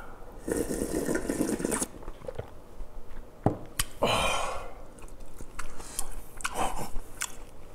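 A long slurp of cheonggukjang (fermented soybean stew) broth from a stone bowl about half a second in, then chewing and a breathy exhale about four seconds in.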